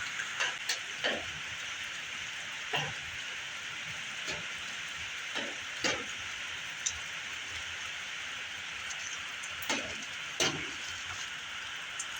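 Steady hiss with a dozen or so scattered light clicks and knocks, typical of small objects being handled.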